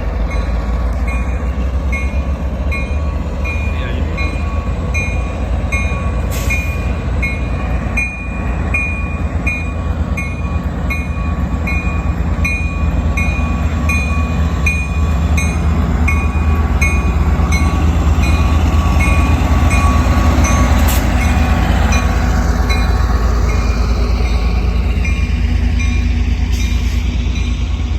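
Tri-Rail commuter train pulling out of the station: the diesel locomotive and the cars make a steady low rumble that grows louder partway through. A bell rings about twice a second over it throughout.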